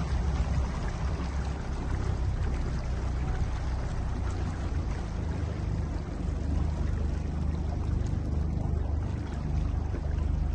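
Small wooden motorboat's engine running steadily at low speed, a continuous low rumble, with water rushing and splashing along the hull.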